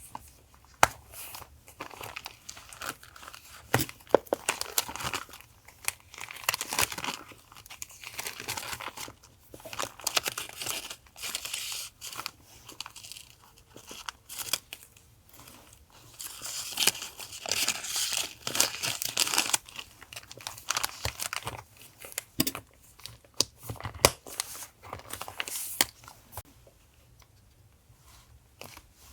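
Paper being handled for a journal collage: rustling, tearing and crinkling, with many small taps and clicks. It is busiest a little past the middle and dies down near the end.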